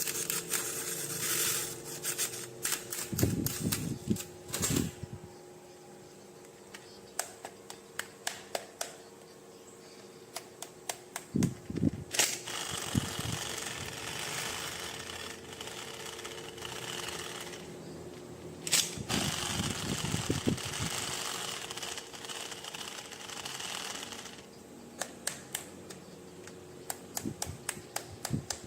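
Hands unboxing plastic toys: scattered clicks and taps of plastic parts being handled, with two long stretches of crinkling packaging and a few low thuds.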